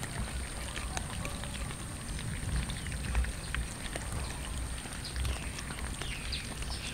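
Many cats chewing and licking raw chicken off a metal plate: a dense run of small wet clicks and smacks over a low rumble.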